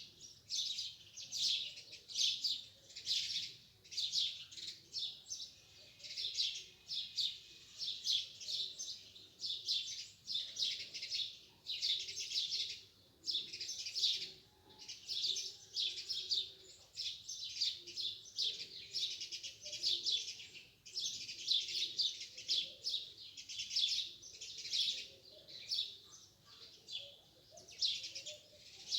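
A chorus of many small birds chirping in the morning: dense, overlapping short high chirps with no break.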